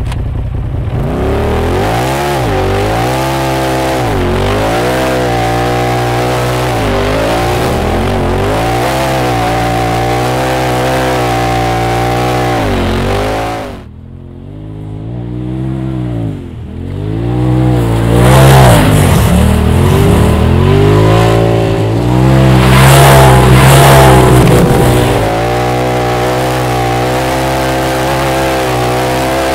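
Polaris RZR side-by-side engine revving and accelerating as it is driven, its pitch climbing and falling again and again with the throttle. About halfway through it dips briefly, then comes back louder, with hard revving for several seconds before settling.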